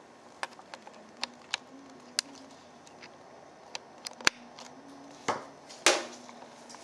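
Handling noise on a handheld camcorder: scattered sharp clicks and taps at irregular intervals, with two louder rubbing knocks about five and six seconds in.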